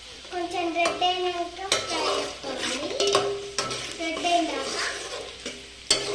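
Steel ladle scraping and stirring around an aluminium pot of chopped onions frying in oil, with squeaky metal-on-metal scrapes, a sizzle underneath and a few sharp knocks of the ladle against the pot, the loudest about a second and a half in and near the end.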